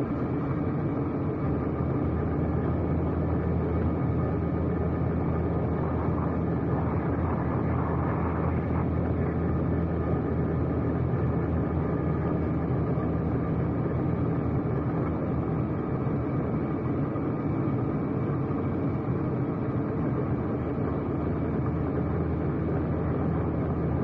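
Engine and road noise of a vehicle being driven along a road, a steady low drone.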